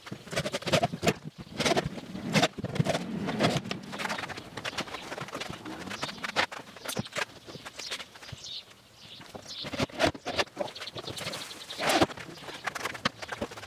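Irregular knocks, taps and clatter of hands working wood pieces and tools at a workbench, with a quick run of fine ticks near the end.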